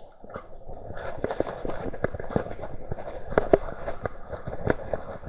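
Rapid, irregular knocks and rattles, starting about a second in, from a mounted action camera in its waterproof housing being jolted over rough ground.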